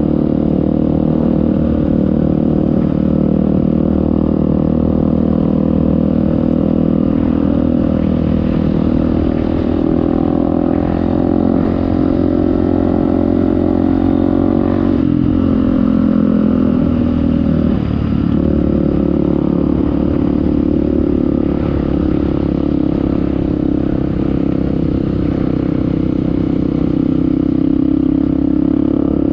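Off-road motorcycle engine running under steady throttle while riding through sand. The revs drop briefly about halfway through, then pick up again.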